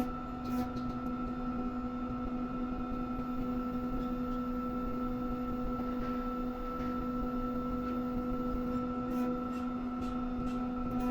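Electric crane's hydraulic drive humming steadily at one constant pitch.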